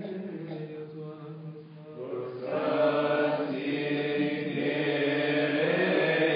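Coptic Orthodox liturgical hymn chanted by male voices in long, drawn-out notes. The singing grows louder and fuller about two and a half seconds in.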